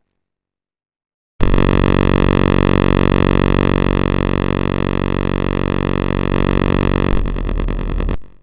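An electric siren sounds one long, steady, buzzy tone at a fixed pitch. It starts abruptly about a second and a half in, wavers briefly shortly before the end, and cuts off suddenly.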